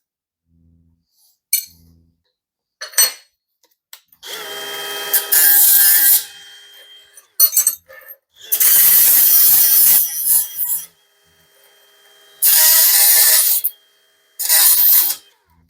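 Handheld power tool run against steel in four short bursts of a second or two, a motor whine under an abrasive hiss, cleaning up the welding surfaces of the cut pieces before tacking.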